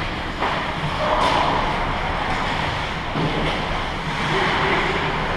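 Ice hockey rink ambience during play: a steady wash of skating and arena noise, with a couple of sharp knocks about half a second and a second in, and faint distant shouts.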